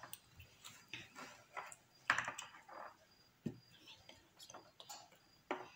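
Chess pieces clicking and knocking as they are picked up and set down on the board: a few light, irregular clicks, with sharper knocks about two seconds in and near the end.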